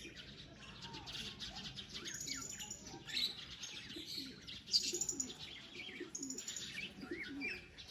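Birds chirping in short, high, repeated calls, with faint low cooing underneath.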